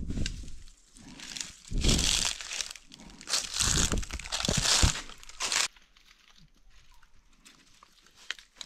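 Dry leaves and brittle stems rustling and crackling as vine stems are pulled and handled over leaf litter, in several bursts that stop about two-thirds of the way through.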